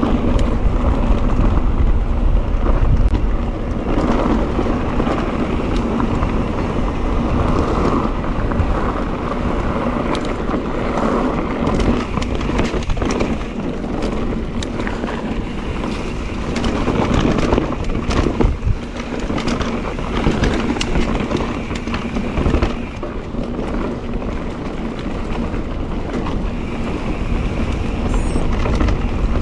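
Mondraker Crafty electric mountain bike riding a rough trail: tyres rolling over the ground, with short rattles and knocks from the bike, under a steady rush of wind on the microphone.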